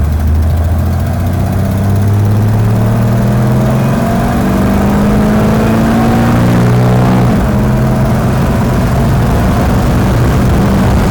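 Six-cylinder engine of a 1951 hot rod accelerating hard from a dead stop, its pitch climbing steadily for about seven seconds. The pitch then dips briefly and holds fairly steady.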